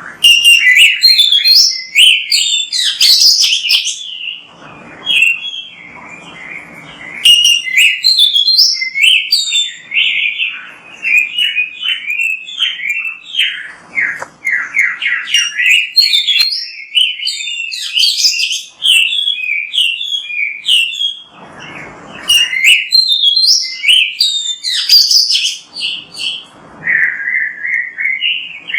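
Oriental magpie-robin (kacer) singing a long, fast, varied song of loud whistles and chirps, broken by a few short pauses.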